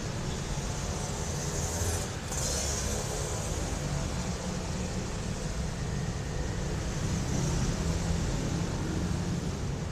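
Steady road-vehicle noise: a low rumble with a hiss over it, briefly dipping about two seconds in.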